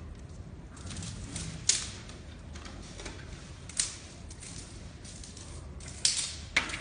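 Giant panda chewing bamboo: crunching with four sharp cracks as the stalk splits.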